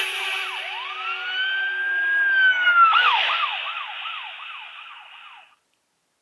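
A siren-like ringtone playing from a Nokia 6234 mobile phone's loudspeaker. A tone sweeps up and holds, then drops about three seconds in into a run of quick falling chirps, about three a second, fading out shortly before the end.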